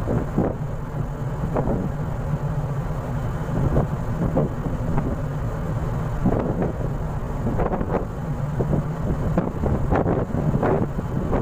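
Wind buffeting the microphone in irregular gusts on the deck of a moving ship, over a steady low rumble and the rush of the ship's wake.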